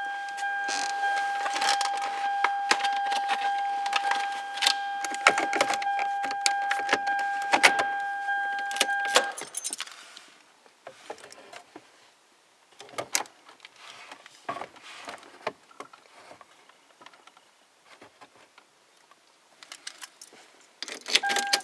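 Clicks and rattles of plastic dash trim being worked loose by hand, with keys jangling. A steady electronic tone sounds through the first nine seconds or so, cuts off, and comes back near the end.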